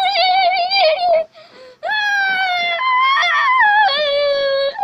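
A young child whining and crying in long, high, wavering wails, two drawn-out cries with a short break between them.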